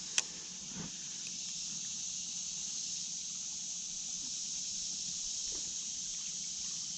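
Steady, high-pitched chorus of crickets, with one sharp click about a fifth of a second in.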